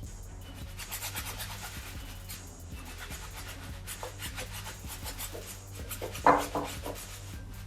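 Bristle brush scrubbing foamy cleaner into the tongue of a mesh sneaker in quick back-and-forth strokes. There is a brief louder bump a little past six seconds in.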